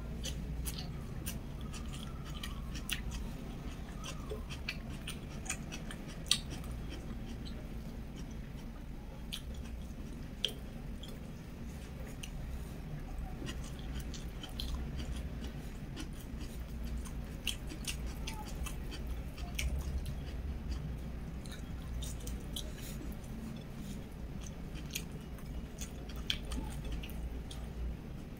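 Close-up eating sounds: a person chewing mouthfuls of rice and omelette eaten by hand, with many short wet mouth clicks and smacks. A steady low hum sits underneath.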